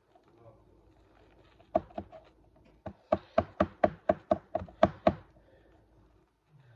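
A run of sharp knocks, a hard object rapping on a hard surface: two about two seconds in, then about ten more in quick succession at four or five a second, stopping abruptly.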